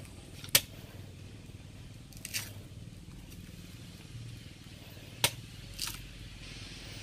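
Machete chopping into the husk of a young green coconut: sharp chops about half a second and about five seconds in, with lighter cuts about two seconds in and near the end.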